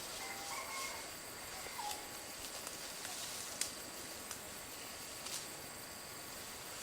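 Outdoor ambience with insects droning steadily at a high pitch, and a few faint sharp snaps about two, three and a half, and five seconds in.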